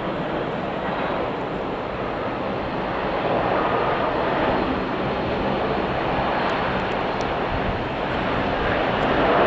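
Aircraft engine noise at an airport: a steady rush that swells a little about three to four seconds in.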